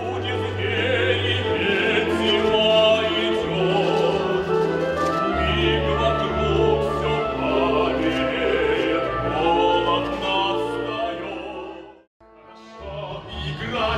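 A live symphony orchestra with singing voices performing a number from a stage musical, with sustained notes and wavering sung lines. The music breaks off for a moment about twelve seconds in, then another passage starts.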